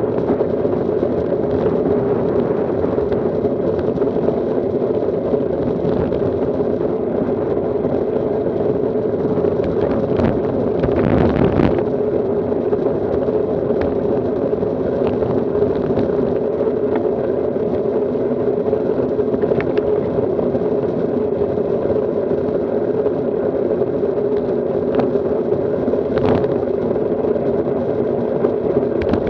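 Steady rumble of wind and road noise on a bicycle-mounted camera as road bikes roll along a paved lane, with a brief louder swell about eleven seconds in.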